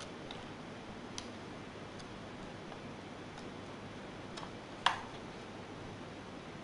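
A few small, sharp clicks and taps of laptop parts being handled during disassembly, irregularly spaced, the loudest about five seconds in, over a steady hiss.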